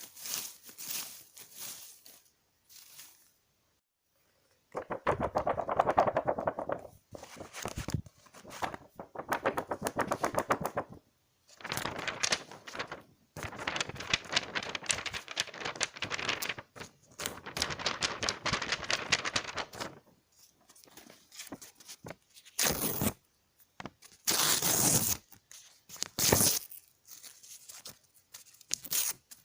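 Paper being torn by hand, one rip after another, each a rasping tear lasting a second or two, with short pauses between and a brief silence a few seconds in.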